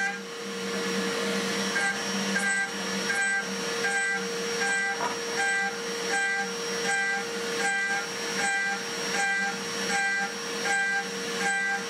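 Home-built CNC mill's spindle running at 12,000 rpm with a 6 mm four-flute Holex ProSteel end mill adaptive-clearing C45 steel. Under a steady spindle whine, a pitched cutting note comes in about two seconds in and then repeats evenly about every 0.7 s as the cutter sweeps into the steel on each clearing pass.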